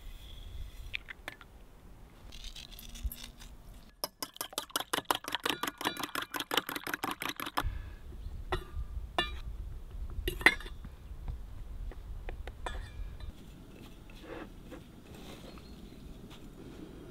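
Hand food preparation for breading: crumbs poured into a ceramic dish, then a fork beating egg in a metal bowl, a rapid run of clicking at about nine strokes a second that lasts several seconds, followed by scattered sharp clinks of utensils on bowls and the soft handling of meat pressed into flour and crumbs.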